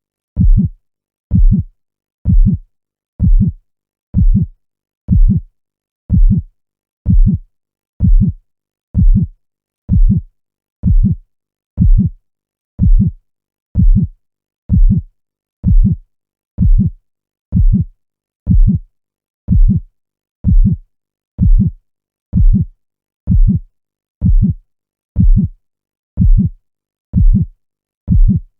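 Heartbeat sound: low, steady thumps about once a second, evenly spaced with quiet between beats.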